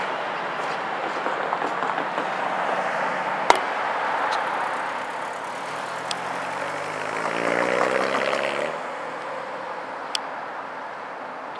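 Rolling rumble of a freight train that slowly fades, with a sharp click about three and a half seconds in. Midway an engine revs up, rising in pitch for about two seconds before it cuts off.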